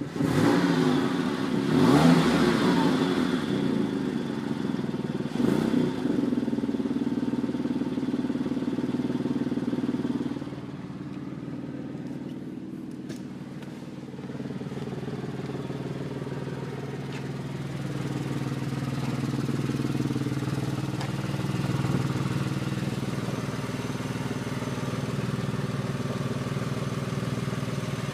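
Porsche 996 Carrera 2's flat-six engine running, with two brief revs in the first few seconds, then settling to a steadier, quieter run about ten seconds in. It carries a strange noise that appeared suddenly and whose cause the owner does not know.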